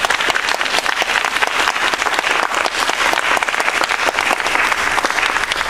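Audience applauding: many hands clapping in a dense, steady patter that starts to die down near the end.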